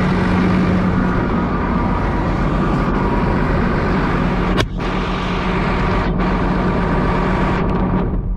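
Massey Ferguson 8480 tractor's diesel engine running steadily at a constant speed, with one brief click about halfway through.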